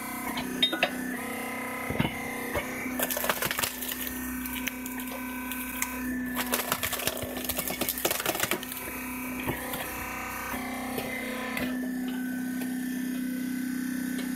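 Wood cracking and splintering as a sawn log round is forced through a six-bladed star-shaped splitting wedge, in two bursts of sharp cracks a few seconds apart. A steady hum runs underneath.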